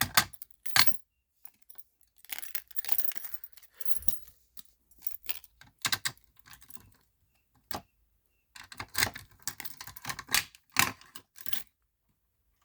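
Fire alarm pull station hardware being handled by hand: irregular clicks and metallic rattles in several short clusters, with pauses between them.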